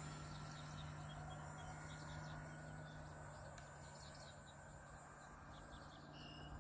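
Faint, steady hum of an RC plane's twin A2212 brushless motors turning 9x4.7 propellers in the distance, slowly fading as the plane climbs away. Birds chirp over it.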